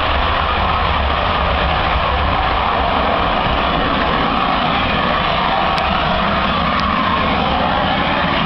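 Rocket motor burning through liftoff and climb: a loud, steady rushing noise with a deep rumble underneath.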